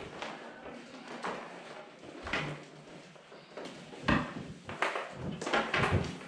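Fish tape and the wiring taped to it being pulled up through the inside of a drywall wall: a series of irregular scraping, rubbing strokes as the cable drags through the hole, louder and denser in the second half.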